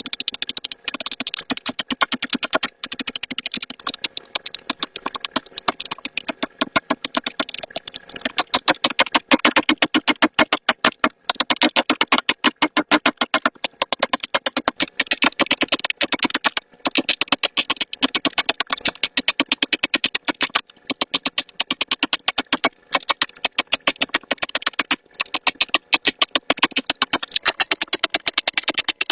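Silicone pop-it fidget bubbles being pressed in quick succession, a fast, uneven run of sharp pops and clicks with short pauses between rows.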